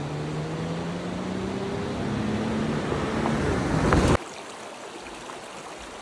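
Jeep Wrangler's engine pulling up a gravel road toward and past, its pitch rising and growing louder, over tyre noise. About four seconds in it cuts off abruptly to the steady rush of a shallow creek.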